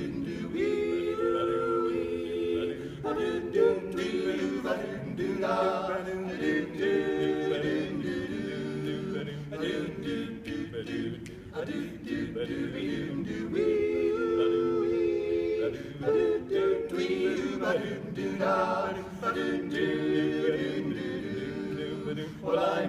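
Barbershop quartet singing a cappella in close four-part harmony, with held chords that change every second or two.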